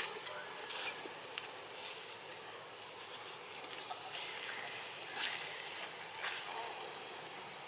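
Outdoor ambience of insects, a steady high hiss with a short high rising call repeating every second or so, broken by scattered sharp clicks.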